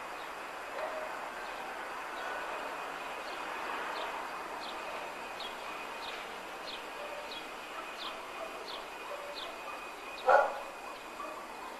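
Outdoor background noise with a faint steady high tone and a run of short high chirps, about one every two-thirds of a second, then a single loud dog bark near the end.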